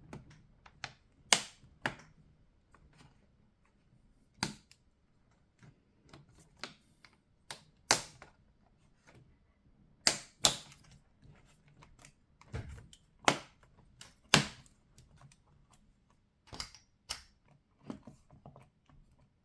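Plastic bottom cover of a laptop being pressed onto the chassis, its edge clips snapping into place one after another as sharp, irregular clicks.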